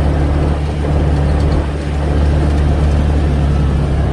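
Farm vehicle's engine running steadily with a low, even drone while it tows a load of palm kernel feed, heard loud and close from on board.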